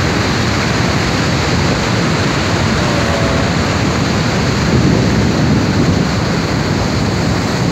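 Niagara Falls' falling water: a loud, steady roar of rushing water.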